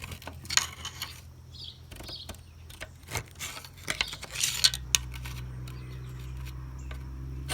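Metal clicks and rattles of the Ford 501 sickle bar mower's spring-loaded Pitman arm latch and fittings being worked by hand, with a denser clatter about four and a half seconds in, over a steady low hum.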